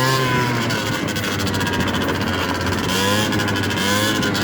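70cc big-bore two-stroke scooter engine running under throttle while being ridden, its pitch rising and falling several times as the revs go up and down.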